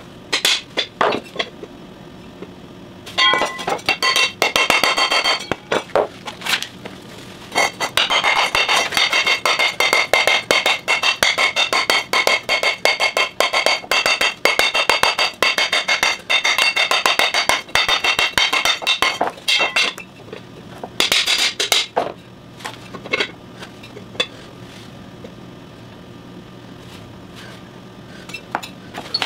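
Claw hammer striking a steel split wheel rim in bursts of rapid blows, the longest running through the middle; the rim rings with steady high metallic tones.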